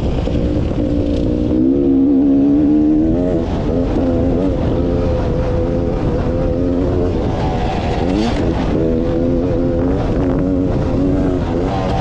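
Beta 300RR two-stroke dirt bike engine running under the rider, its revs rising and falling with the throttle, and a sharp drop and climb in pitch a little past the middle. Steady wind rumble on the microphone underneath.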